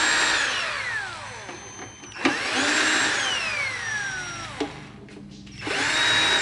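Electric screwdriver backing out the case screws of a power mixer. Its motor whines at a high pitch, then falls in pitch as it winds down, ending with a click; this happens twice, and a third run starts near the end.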